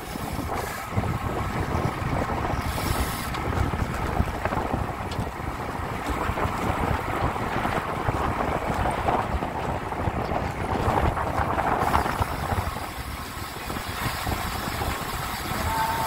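Steady wind noise buffeting the microphone of a camera riding on a road bike in a group ride.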